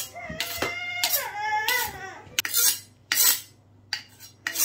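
A kitchen knife drawn along a honing steel, about half a dozen short metal-on-metal scraping strokes. A high, falling, wavering wail sounds over the first two seconds.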